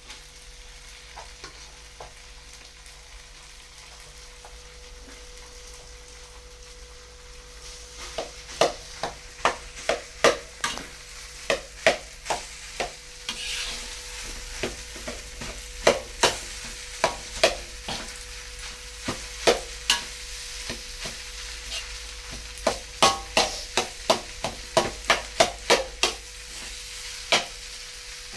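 Fried rice sizzling in a pan as it is stirred. About eight seconds in, the spatula begins to scrape and knock against the pan over and over.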